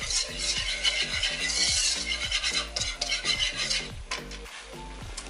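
Wire balloon whisk scraping quickly around a metal non-stick pan, working flour into melted butter for a roux. The strokes ease off near the end. Background music plays underneath.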